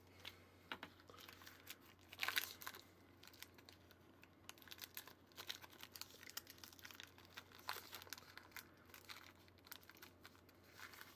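Faint crinkling and soft crackles of a fruit roll-up being peeled off its clear plastic backing film, with a slightly louder crackle about two seconds in.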